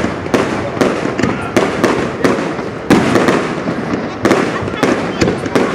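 Aerial fireworks shells bursting in quick succession, a string of sharp bangs about two a second with a continuous background of crackle and noise.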